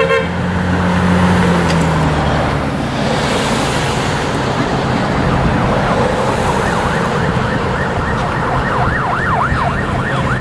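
An emergency vehicle's siren in a fast yelp, its pitch rising and falling a few times a second, coming in strongly about eight seconds in over steady street traffic noise. A low vehicle engine hum fades out in the first couple of seconds.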